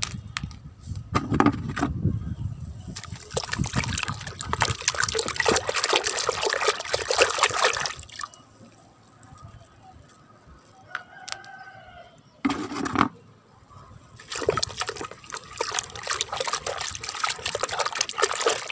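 Water sloshing and splashing in a bucket of soapy water as a hand dips and scrubs small plastic toy animals, in spells of several seconds with a quieter stretch between. A short thump comes a little past the middle.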